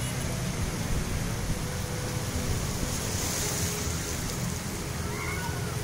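Small waves breaking and washing in shallow surf, with wind rumbling on the microphone. A brighter hiss of washing water swells briefly about halfway through.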